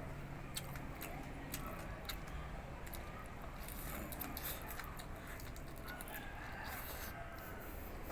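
Close-up crunching and chewing of crispy deep-fried pork face: irregular, sharp crackles of crisp skin breaking between the teeth.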